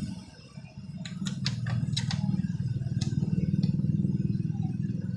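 Several sharp clicks and clatters from the welding machine's cables and connectors being handled, over a steady low hum.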